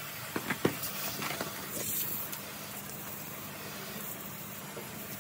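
Garden hose spray nozzle hissing steadily as the jet of water hits a sweaty horse's neck and shoulder, with a few short clicks and splashes in the first second and a half.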